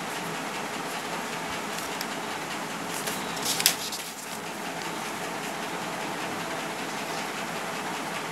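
Steady rushing background noise, with a short crackle of a paper sheet being handled near the microphone about three and a half seconds in.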